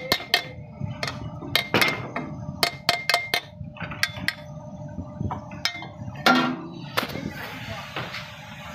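Irregular sharp metal knocks and clinks, about a dozen, some with a short ring, from the metal hopper and chute of a rice mill being struck. The loudest clank comes about six seconds in.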